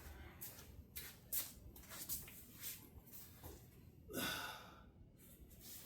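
Faint scattered clicks and creaks as a jack is let down very slowly under a suspended engine, with one louder breath, like a sigh, about four seconds in.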